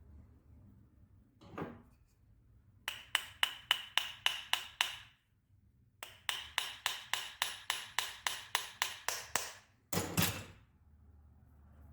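Light hammer taps on metal, about four a second with a short ring after each, in two runs (a short one, then a longer one after a pause), followed by a single heavier knock near the end: tapping a bearing while replacing it in a Fiolent MF4-1100E wood router.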